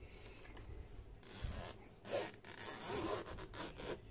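Zipper on a fabric-covered hard-shell camera storage case being pulled open in several short strokes, starting about a second in.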